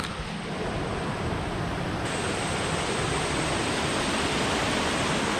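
Flowing forest stream: a steady, even rush of water that grows a little louder.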